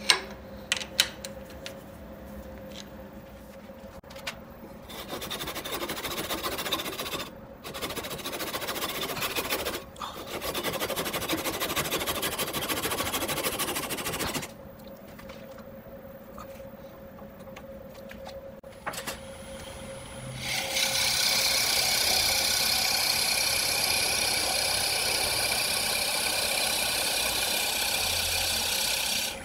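Walnut being worked on a running wood lathe: a few sharp clicks, then on-and-off rasping and rubbing as a tool or abrasive meets the spinning wood. About two-thirds of the way through, a louder steady machine whine starts and holds.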